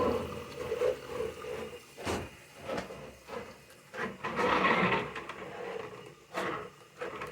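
A few scattered knocks and clicks of hard parts being handled, with a brief rushing noise about four and a half seconds in.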